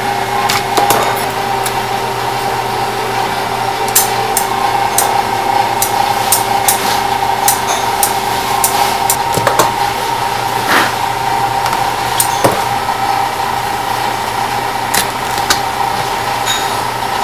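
A steady mechanical hum with irregular sharp clicks and knocks over it, a few of them louder.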